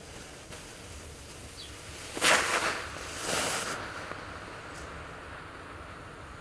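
Novelty firework tanks going off: a sudden loud rushing hiss of sparks about two seconds in, a second smaller burst a second later, then a quieter steady fizz as they keep spraying sparks and smoke.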